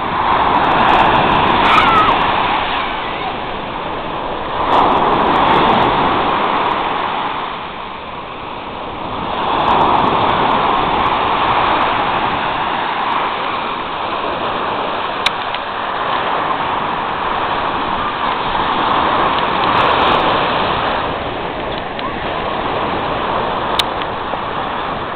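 Small sea waves breaking and washing up a sand-and-shell beach. The surf swells and eases in a slow rhythm every few seconds.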